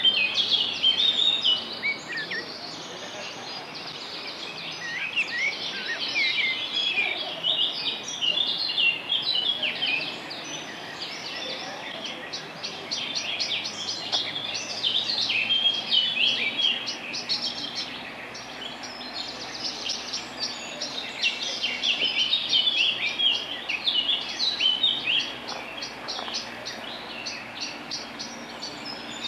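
Several songbirds singing at once, a mix of quick chirps and fast trills, over a steady rush of running stream water.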